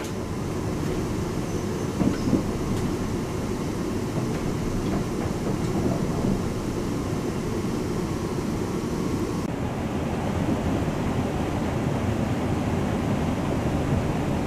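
Steady low rumble inside the saloon of a Class 350 Siemens Desiro electric multiple unit running along the line, with a few faint knocks about two seconds in.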